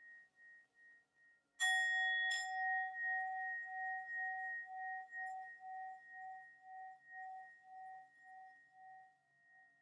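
Tibetan singing bowl: the last ring dies away, then the bowl is struck twice in quick succession about a second and a half in and rings on with a slow, regular waver, about two pulses a second, fading out near the end.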